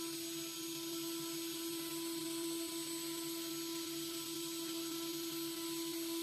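CNC engraving and milling machine's spindle running steadily as a small cutter mills a relief figure into a metal block: an even whine over a high hiss.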